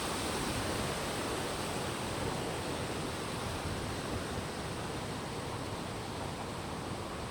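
Stream water rushing steadily, fed by the previous day's rain, as an even hiss that eases slightly towards the end.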